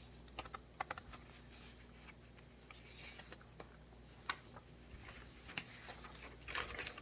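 Faint, irregular light clicks and taps over quiet room tone, with a small cluster near the end.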